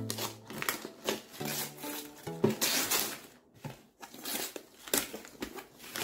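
Gift wrapping paper being roughly torn and crumpled by hand as a present is opened, in a quick series of irregular rips and rustles.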